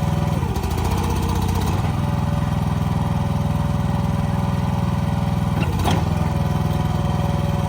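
Excavator's engine running steadily, with brief wavering changes in its sound about half a second in and again near six seconds.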